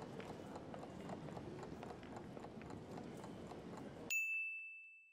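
Faint background ambience of footsteps and bustle, with many light clicks. About four seconds in it stops and a single bright bell ding sounds and rings out for about a second, a quiz timer's time-up chime.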